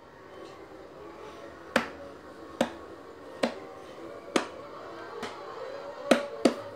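Small toy acoustic guitar strummed in single sharp strokes that die away quickly. The first comes about two seconds in, then roughly one a second, with two quicker strums near the end.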